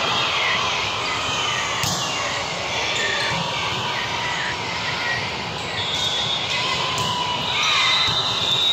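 Echoing din of a busy sports hall: many overlapping voices talking and calling out, with a few short knocks of balls being hit or bounced.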